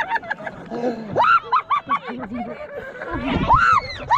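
People laughing, with high squealing cries that rise and fall about a second in and again near the end.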